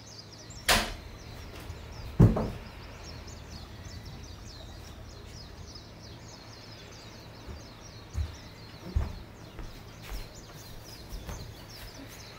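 A few knocks and thumps of a sliding window or door being handled, the heaviest about two seconds in and a cluster of lighter knocks later on, over a steady low hum and a constant run of faint high chirps.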